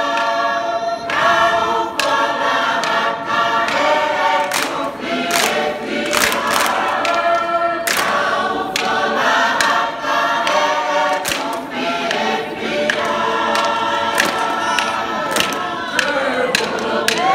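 Mixed choir of men and women singing a Tongan lakalaka in full harmony, loud and sustained, punctuated every second or so by sharp hand claps.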